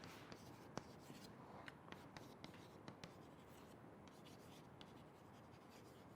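Faint scratching and light taps of a pen writing, mostly in the first half, then quieter.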